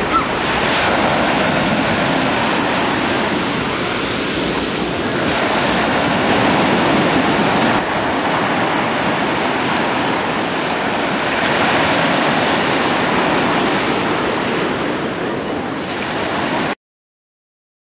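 Sea waves breaking on a sandy shore: a steady rush of surf that swells and eases every few seconds. It cuts off suddenly near the end.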